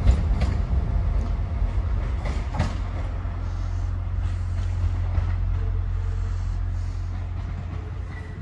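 Class 175 diesel multiple unit moving away, its low diesel rumble slowly fading. A few sharp clicks come near the start and about two and a half seconds in.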